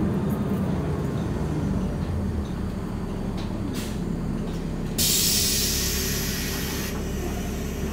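City transit bus running, its engine a steady low hum, then about five seconds in a sudden loud hiss of compressed air from the bus's air system that lasts about two seconds.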